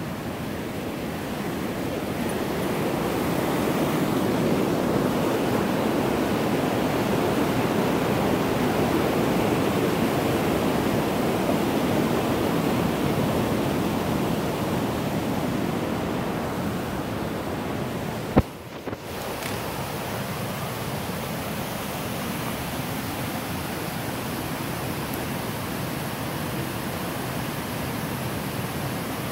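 Rushing mountain creek water, a steady whitewater noise that swells louder for several seconds in the middle and then eases back. A single sharp click about eighteen seconds in.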